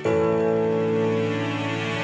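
Background music: held chords, with a new chord struck right at the start.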